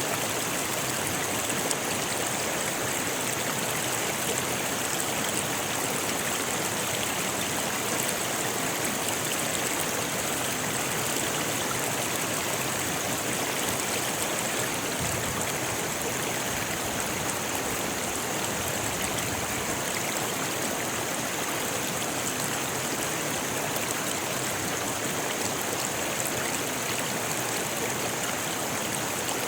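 Rocky river flowing over stones: a steady, even rush of water, bright and hissy in the highs.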